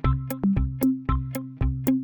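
Upbeat background music with a steady electronic beat, about two drum hits a second, over held synthesizer notes.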